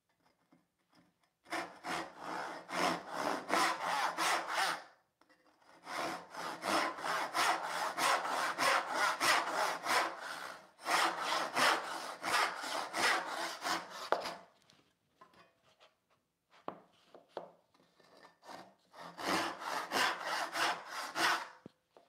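Western-style backsaw (a joinery crosscut saw) cutting across the grain of a maple tenon shoulder. Quick back-and-forth rasping strokes, about three a second, come in four runs separated by short pauses, with a few lighter strokes between the third and fourth runs.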